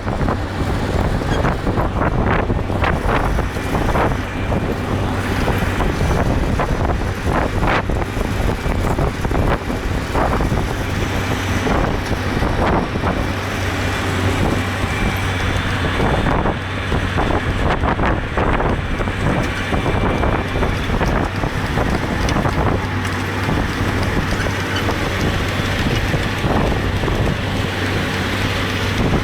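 Tractor engine running steadily in the field, with scattered knocks and rattles from the machinery and wind buffeting the microphone.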